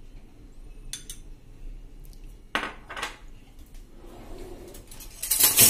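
Steel spoon clinking against a glass bowl and ceramic plate while melted ghee is spooned onto flour: a few separate clinks, then a louder clatter near the end.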